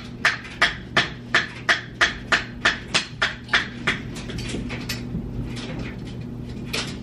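A rapid run of sharp, evenly spaced clicks, about three a second, loud for about four seconds and then fainter, over a low steady hum.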